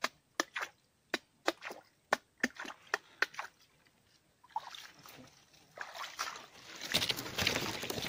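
A string of sharp clicks or snaps, about three a second, then water sloshing and splashing that grows louder toward the end.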